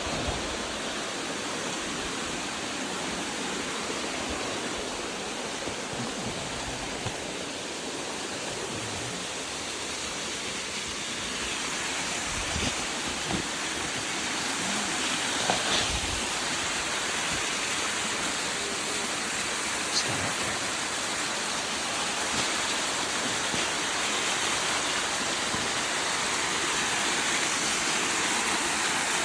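Steady rushing of a waterfall, a little louder in the second half, with a few faint knocks.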